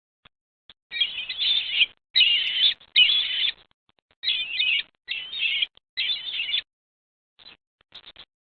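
Bald eagle giving high-pitched chittering calls close to the nest microphone, in six bursts over about five seconds, then a few faint short calls near the end.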